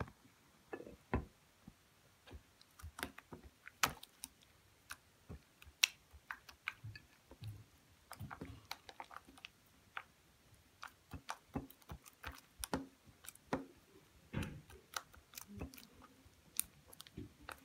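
Sticky homemade slime being squeezed and stretched between the fingers, giving faint, irregular wet clicks and small pops as it sticks and pulls apart.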